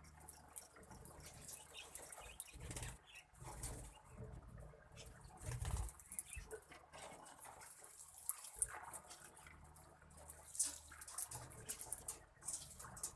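Lovebirds feeding on seed and moving about, heard as scattered small sharp clicks and rustles at irregular intervals, with a few louder ones, over a low steady hum.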